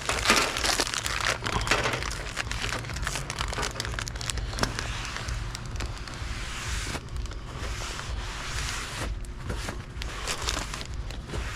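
Continuous crinkling and rustling of handled paper or plastic, with scattered small clicks and knocks, over a low steady hum.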